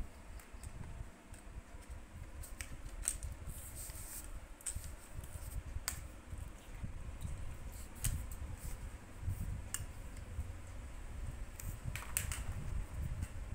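Scattered sharp clicks and light scrapes of plastic and metal parts as a spin mop's telescopic handle is handled and a mop head is pressed onto its plastic base, over a low rumble.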